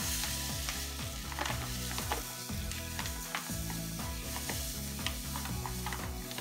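Granulated sugar pouring onto cut strawberries in a bowl: a steady grainy hiss dotted with many small ticks as the crystals land.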